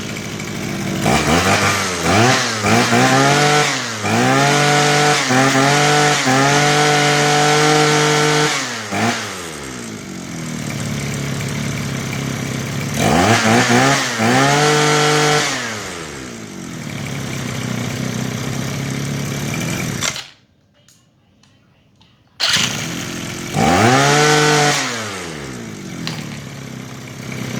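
Makita 25cc brush cutter engine running and being revved: several quick throttle blips, a long stretch held at high revs, then dropping back to idle. It stops about two-thirds of the way through, starts again a couple of seconds later, revs up once more and shuts off at the end.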